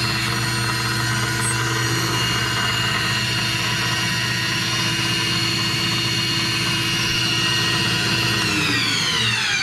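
Boyar-Schultz No.1 profile grinder running steadily with a hum and a high whine from its spindle drive. Near the end it is switched off and the pitch falls as it spins down.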